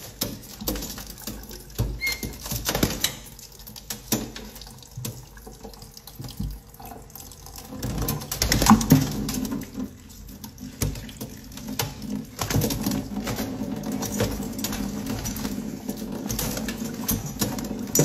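Kitchen faucet running into a stainless-steel sink while small parrots bathe under the stream, splashing and flapping their wings in the water. The splashes come as many short irregular slaps over the steady patter of water on the steel.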